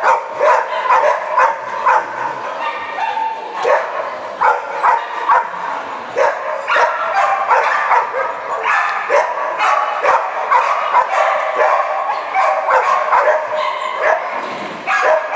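Border collie barking over and over, two or three short barks a second without a break, typical of an excited dog running an agility course.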